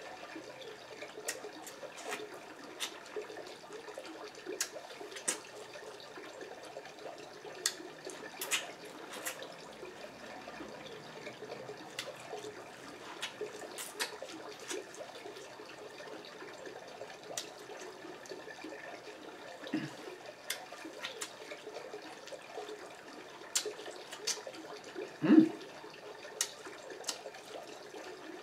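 Close-miked wet mouth sounds of someone eating sauce-covered seafood boil by hand: squelchy chewing, sucking and lip-smacking with many scattered sharp clicks. Twice a brief low hum of enjoyment breaks in, the louder one near the end.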